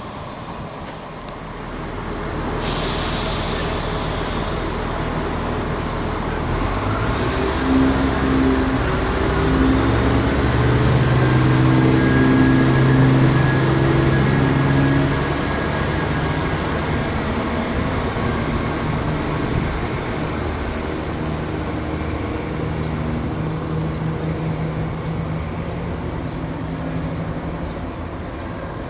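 East Midlands Railway Class 170 Turbostar diesel multiple unit pulling away: a short hiss of air about three seconds in, then its underfloor diesel engines rev up, loudest about ten to fifteen seconds in. After that the engine note steadies and slowly fades as the train moves off.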